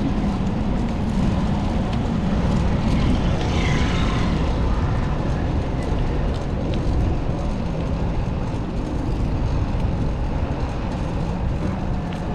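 Steady rumble of wind and city traffic picked up while riding a bicycle along city streets.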